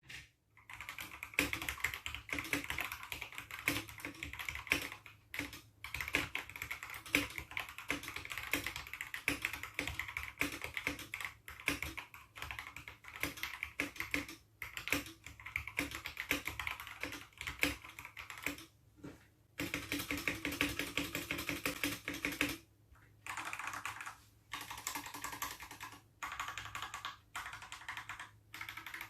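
Steady fast typing on a Tes 68 mechanical keyboard: dense runs of key clacks with short pauses every few seconds.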